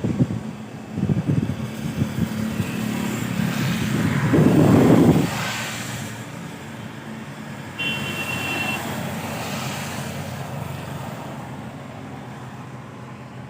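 Road vehicle noise, with one vehicle swelling loudest about four to five seconds in and then fading away. A brief high tone sounds near eight seconds.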